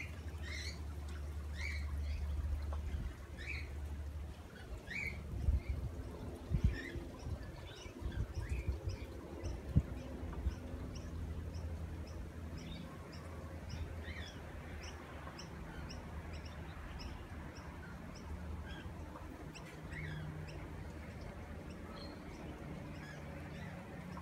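Birds calling: short downward chirps about once a second, then from about halfway a fast, even run of high notes, two to three a second. A low steady rumble lies underneath, with a few sharp knocks near the middle.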